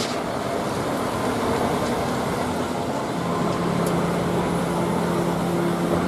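Diesel engine of a MAN truck-mounted concrete mixer running as the truck manoeuvres slowly, a steady engine noise with a low hum joining about three seconds in.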